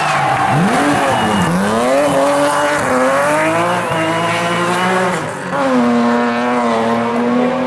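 BMW E36 3 Series rally car's engine revving hard through a tight corner: the revs dip, then climb as it powers out, with brief tyre squeal. The note breaks off for a moment about five seconds in at a gear change and carries on at steady high revs as the car pulls away.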